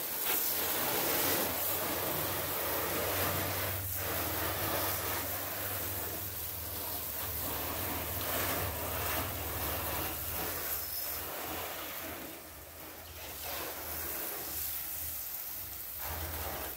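Water from a garden hose pistol-grip spray nozzle hitting a car's side panels, a steady rush of spray that eases briefly about twelve seconds in.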